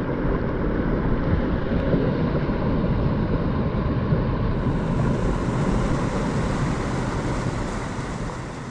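Creek water rushing over a low concrete weir and through shallow icy rapids, with wind buffeting the microphone. It is a steady rush that fades out near the end.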